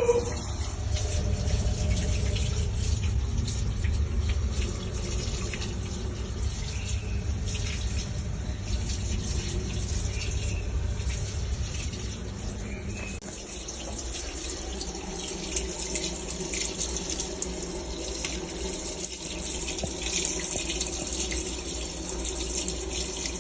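Water running steadily from a washing machine that leaks from the bottom. A low hum under the water drops away about 13 seconds in.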